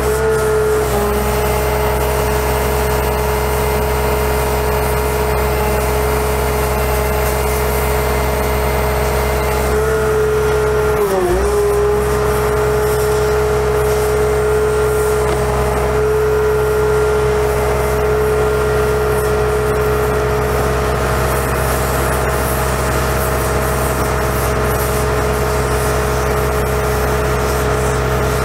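Cummins ISC diesel engine of a Kenworth T300 bucket truck running steadily with the high whine of the aerial boom's hydraulic pump over it, as the Hi-Ranger boom is worked. About eleven seconds in, the whine sags briefly in pitch and then recovers.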